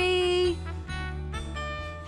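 Background music with a steady bass line and held notes; one held note stops about half a second in.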